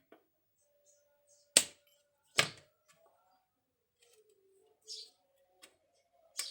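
Hand tools clicking on a CRT TV's circuit board as a resistor is removed: two loud sharp clicks about a second apart, a short hiss later, and another click near the end.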